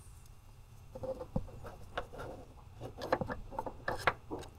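Hands working on a car's hood latch sensor: scattered light clicks and taps, coming thicker towards the end.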